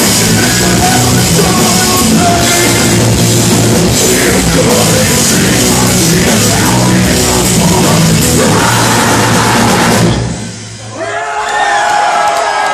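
Metal band playing live, with drum kit and distorted guitars and bass, stopping abruptly about ten seconds in. Then shouts and cheers from the crowd.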